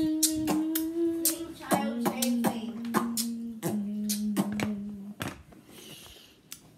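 A voice singing three long held notes, each lower than the one before, with sharp taps and clicks of hands scattered through them; it goes quiet about five seconds in.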